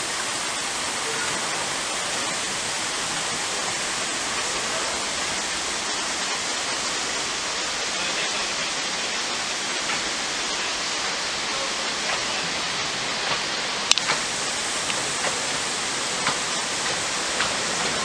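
Steady rushing of running water. In the last few seconds a few sharp clicks and knocks come through as the small narrow-gauge train draws near on the track.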